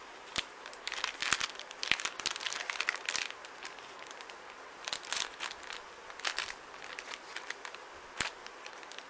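Thin clear plastic bag crinkling and rustling in the hands as a small kabuki makeup brush in a mesh sleeve is handled out of it. The crackling comes irregularly, busiest in the first few seconds and again a little past the middle.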